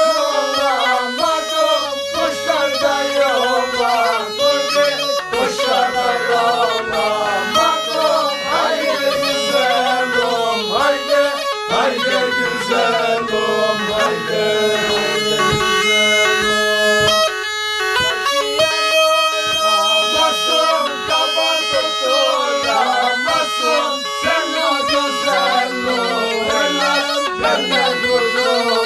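Tulum, the Black Sea bagpipe, playing a fast-moving melody of quickly changing notes.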